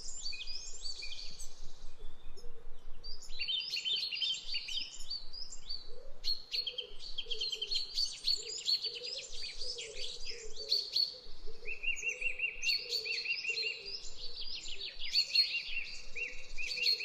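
Several birds chirping and calling over one another in quick high notes, with rapid trills of repeated notes around twelve and fifteen seconds in.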